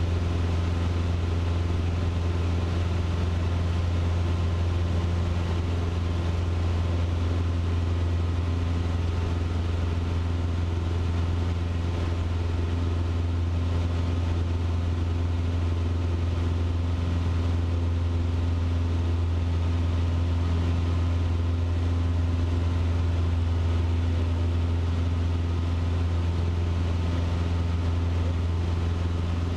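Cessna 150's four-cylinder Continental O-200 engine and propeller running steadily in flight, a constant drone heard from inside the small cockpit.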